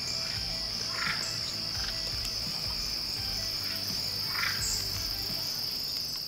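Evening chorus of crickets trilling in one steady, high, unbroken tone. Two short, lower calls from another creature come through about a second in and again about four and a half seconds in.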